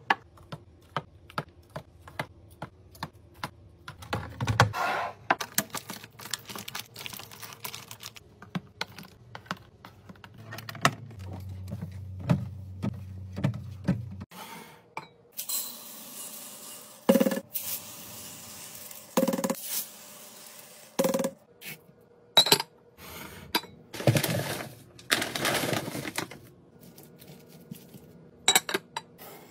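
Containers, jars and packaging being handled and set into a fridge during restocking: a steady run of sharp clicks, taps and clinks, with a few longer noisy stretches from handling packaging.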